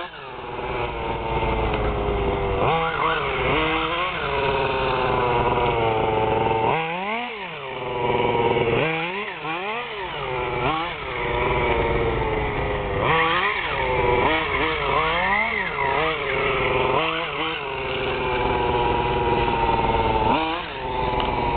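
Radio-controlled model car's small two-stroke engine, revving up and dropping back again and again as it is driven, with stretches of steady high running in between.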